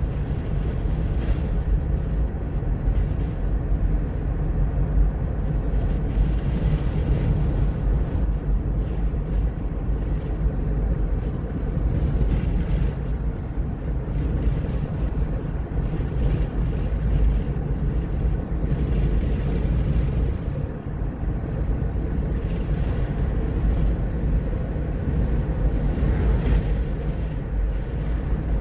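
Steady low rumble of a car driving along a paved road, heard from inside the car: tyre, engine and wind noise.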